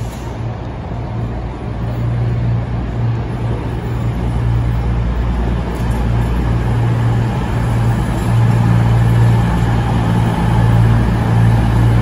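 CrossCountry Voyager diesel multiple unit moving past along the platform, its underfloor diesel engines running with a steady low hum that grows louder as the cars draw level.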